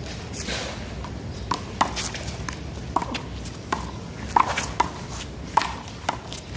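One-wall handball rally: a quick, irregular series of sharp slaps as the small rubber ball is struck by hand and bounces off the wall and the pavement.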